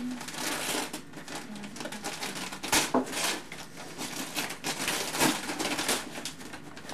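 Wrapping paper being torn and crumpled as a present is unwrapped: a run of crackling rustles, with a couple of louder crackles about three and five seconds in.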